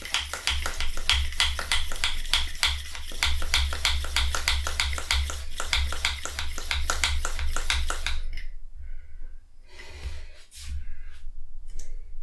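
Bicycle pump being worked fast with rapid, regular clicking strokes, inflating a bicycle tyre that is already getting firm. The pumping stops about eight seconds in, followed by a few separate short handling sounds.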